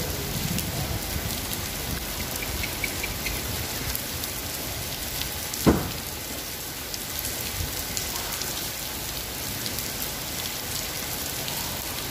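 Heavy rain pouring steadily onto wet pavement, with one sharp knock a little past halfway.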